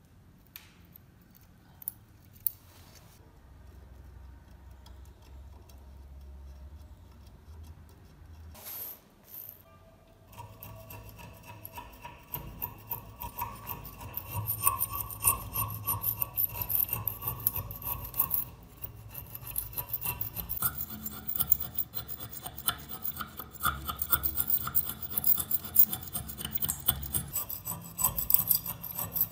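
A small metal scraping tool scraping thick, crusty rust scale off a steel knife blade clamped in a vise. A few light clicks and taps at first, then steady rasping scraping from about a third of the way in, growing louder.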